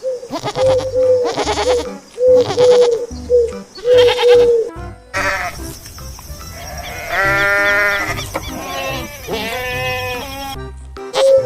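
Goats bleating: a run of short, pitched bleats about once a second, then a longer, fuller bleat about seven seconds in, and more short bleats near the end.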